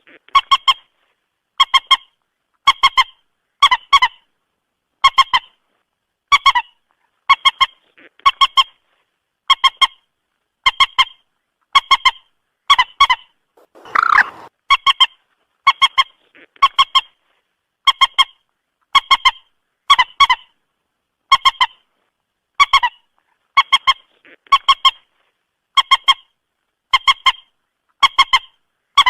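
Moorhen calls played as a trapping lure: short, sharp pitched notes in quick clusters, repeating about once a second. About halfway through comes one longer, lower call.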